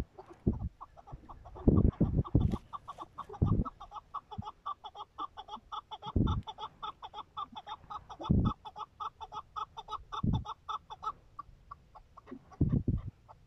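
A young chukar partridge calling in a fast, steady run of short clucking notes, about eight a second, that stops near the end. Loud low thumps come every second or two through it.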